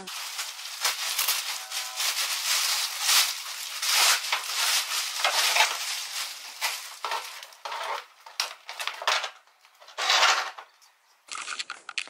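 Large sheet of plastic wrap crinkling and rustling as it is pulled off a new car bumper, in irregular handfuls that die away near the end.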